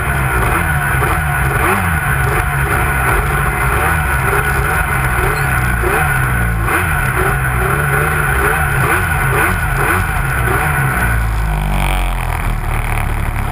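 Arctic Cat Crossfire 800 two-stroke snowmobile engine running under load, its revs rising and falling as the sled is ridden. About eleven seconds in the revs drop off.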